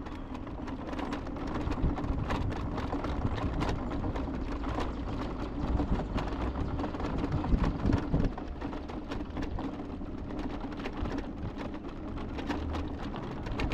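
A steady motor hum with loose rattling and irregular clicks throughout.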